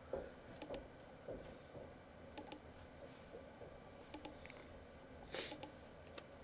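Computer mouse button clicked several times, each a short paired click of press and release, faint over room tone. A brief soft hiss comes about five seconds in.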